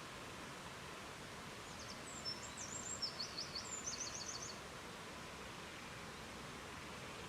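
Steady rushing of river water, with a songbird singing one short song of quick, high repeated notes starting about two seconds in and lasting about three seconds.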